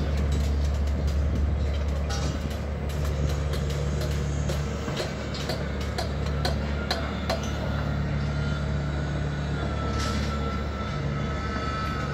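Construction-site machinery: a heavy engine running steadily under scattered knocks and clanks, with a thin steady whine joining about halfway through.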